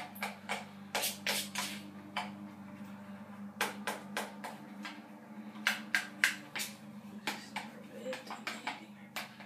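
A spoon stirring hair dye in a mixing bowl, clicking and scraping against the sides in irregular quick strokes, over a steady low hum.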